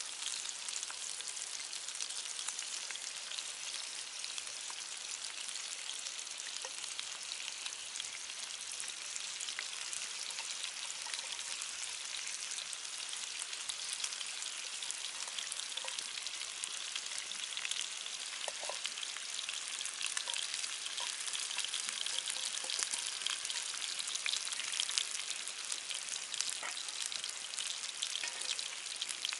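Food sizzling steadily in a hot frying pan, with many small crackling pops.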